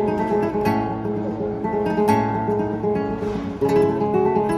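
Solo flamenco guitar, a nylon-string instrument, played in free improvisation: a plucked melody over held bass notes, broken by sharp strummed chords about a second in, at about two seconds, and near the end.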